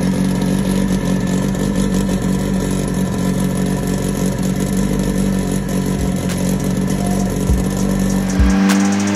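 Turbocharged Honda K20 four-cylinder in an Acura NSX running on a chassis dyno, loud and holding steady revs. In the last second the revs climb with a few sharp pops from the exhaust.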